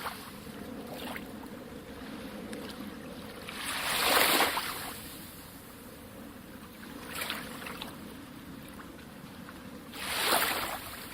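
Calm sea waves breaking and washing onto the shore. The waves swell up loudly twice, about four and ten seconds in, with a smaller wash around seven seconds, over a steady wash of surf.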